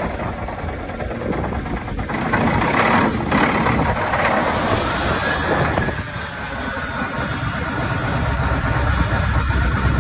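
Heavy earthmoving machine's diesel engine running just after a cold start. About four seconds in, a whine rises and then holds steady, and a deeper rumble builds near the end.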